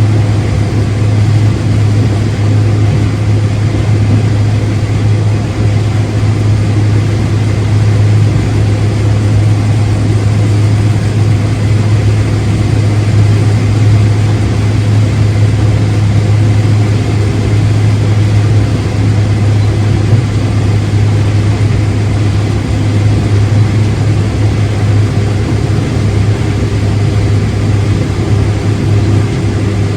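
Farm machine's engine running at a steady speed: a loud, constant low drone that holds the same pitch throughout.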